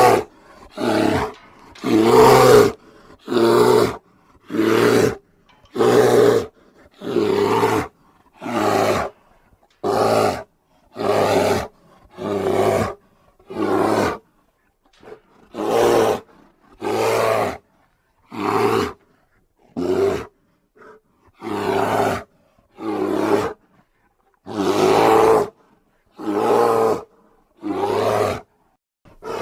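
A shaggy bear-like film creature roaring again and again: about twenty short, rough roars, one every second or so, with brief silences between.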